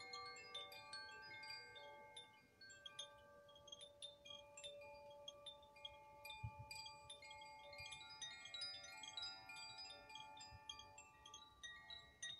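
Metal chimes ringing quietly, struck again and again so that many clear tones at different pitches overlap and hang on.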